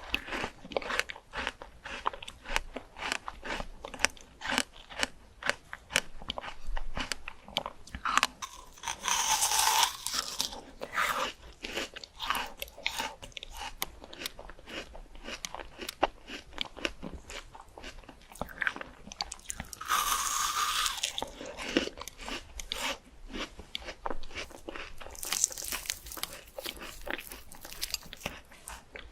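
Close-up crunching and chewing of fresh fruit, a dense run of wet crisp bites and chews, broken three times by a longer hissing sound.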